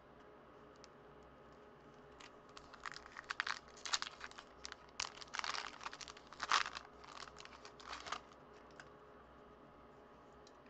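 Foil trading-card pack wrapper being torn open and crinkled by hand, a run of short crackles that is busiest in the middle and stops well before the end.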